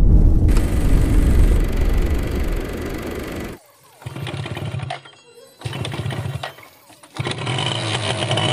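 Two-stroke Yamaha F1ZR motorcycle engine running, heard in short edited clips. A steady low rumble gives way after about three and a half seconds to brief bursts of engine sound, broken by sudden cuts to near quiet.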